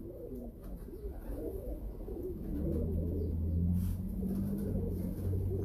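Caged domestic pigeons cooing, a jumble of low, wavering coos. A low steady hum joins in about two and a half seconds in.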